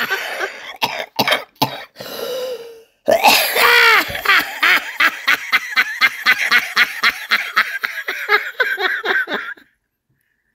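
One voice laughing hard, with coughing and throat-clearing in the first couple of seconds, then a long run of rapid ha-ha pulses, about five or six a second, that stops suddenly near the end.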